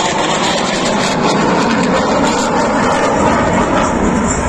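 Aircraft engine noise, loud and steady, from a plane flying a display pass.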